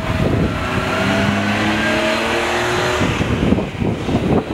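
A motor vehicle's engine accelerating: a hum rising slightly in pitch for about three seconds, then fading, with a few knocks near the end.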